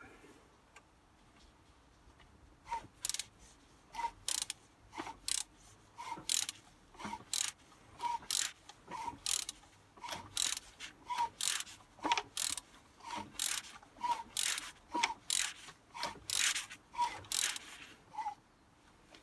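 Ratchet wrench clicking in short strokes, about one group of clicks a second, as it turns a BMW M57 diesel engine over by hand to check the cam timing. The clicking starts about three seconds in.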